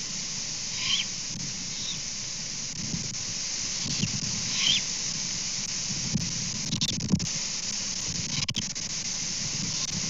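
About six short, high screeches from juvenile great horned owls, spaced a second or more apart. Behind them are a steady hiss and gusts of wind rumbling on the microphone.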